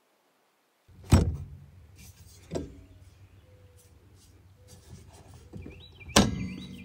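Hard plastic-and-metal clunks from handling the headache rack's Lock and Ride latch and mounting tube: a sharp clack about a second in, a lighter one a second and a half later, then a louder rattling knock with a brief squeak near the end.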